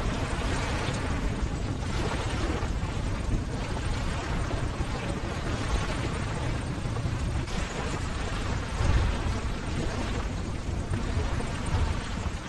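Ocean surf: a continuous wash of breaking waves with a deep rumble, swelling and easing every few seconds.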